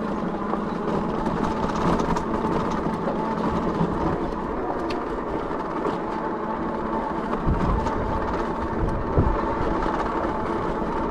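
Dirwin Pioneer fat-tire electric bike climbing a dirt hill under motor power: a steady hum and rumble from the motor, the fat tyres on the ground and wind, with a couple of low bumps in the second half.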